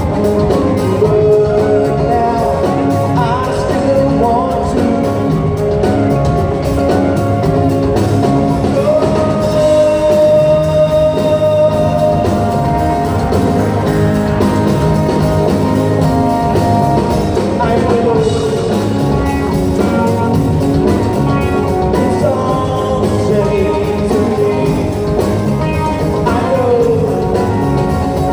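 Live rock band playing a song on guitars, drums and keyboards, with a long held note about nine seconds in and sliding notes later on.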